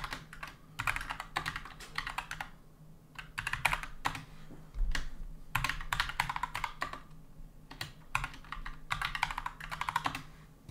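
Computer keyboard being typed on: quick runs of keystrokes with short pauses between them.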